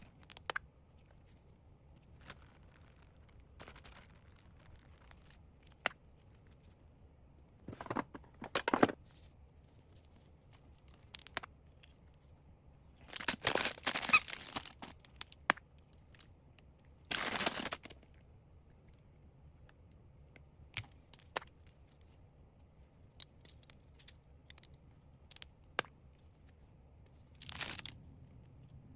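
Packaging being handled: intermittent rustling and crinkling, with scattered small clicks and a few louder bursts of a second or two, like tearing or crumpling.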